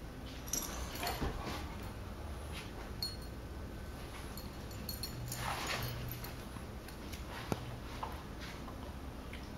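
Snoring: a few slow, noisy breaths, the longest about halfway through with a low buzzing rattle.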